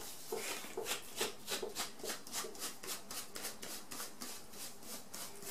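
Packaging being unwrapped by hand: a fast run of crinkling rustles, several a second.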